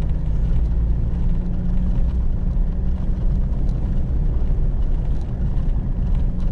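Vehicle engine and tyre noise heard from inside the cabin while driving up a steep brick-paved road: a steady low drone with an even hum and a few faint ticks.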